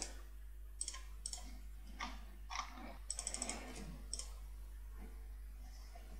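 Computer mouse and keyboard clicks: scattered single clicks and a quick run of about six near the middle, over a faint steady low hum.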